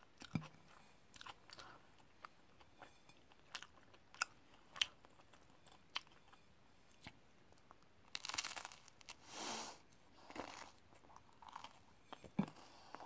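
A person biting and chewing an open sandwich topped with crisp lettuce, cucumber and carrot: faint scattered clicks and crunches, with a run of longer crunches a little past the middle.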